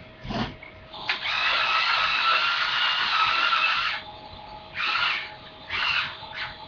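Black & Decker toy chainsaw buzzing steadily for about three seconds, then cutting in again in several short bursts. It comes after a click near the start.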